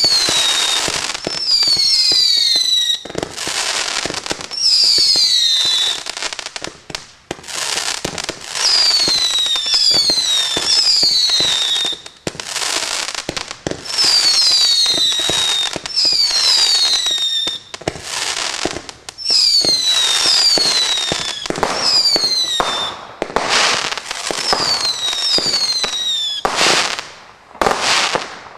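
Firework barrage (cake) firing shot after shot with rushing bursts of noise. Many shots carry a whistle that falls in pitch, often two or three overlapping, and near the end come a few sharp bangs.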